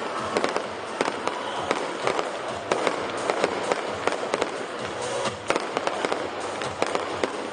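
Aerial fireworks going off in a continuous barrage: many sharp bangs and crackles follow one another in quick, irregular succession over a steady noisy rumble.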